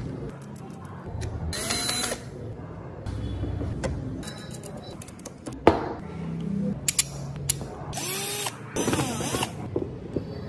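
A small handheld power tool, such as a drill or driver, runs in short bursts: once about two seconds in and twice more near the end. Between the bursts there are small clicks and knocks of wooden parts and metal fittings being handled, with one sharp click about halfway.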